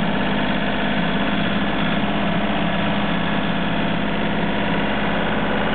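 Small vehicle engine running steadily, an even drone that holds one pitch throughout.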